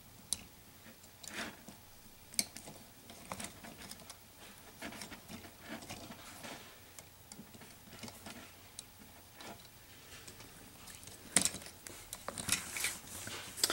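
Faint light clicks, taps and rattles of a plastic LEGO Technic model being handled and turned over, scattered and irregular, with a busier run of clicks near the end.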